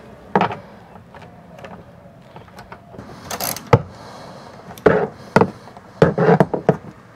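Small socket ratchet with a 10 mm socket clicking as bolts are undone inside a car's rear door, with scattered knocks of the tool against the door and trim. There is a short rasping run of ratchet clicks a little over three seconds in and a quick cluster of clicks near the end.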